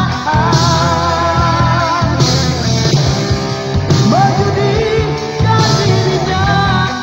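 Rock music with singing and a full band.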